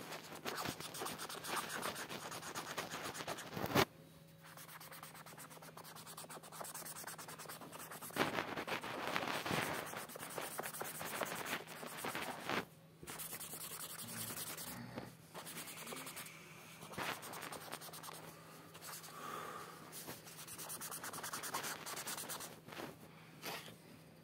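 Felt-tip marker scribbling back and forth on paper, colouring in a large area in quick scratchy strokes, with a few short pauses.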